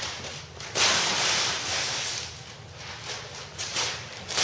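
Wrapping paper being ripped and crumpled off a present, in bursts of rustling and tearing, the loudest starting about a second in.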